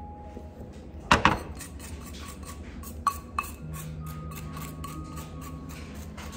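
Chopsticks and tableware knocking on a ceramic plate: two sharp clacks about a second in, then two lighter taps about three seconds in, over faint background music.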